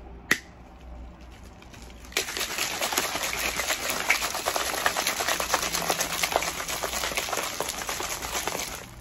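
A plastic shaker cup's lid snaps shut with one sharp click, then from about two seconds in the cup is shaken hard for about seven seconds: drink mix and leftover ice chunks rattling and sloshing inside, and it stops suddenly near the end.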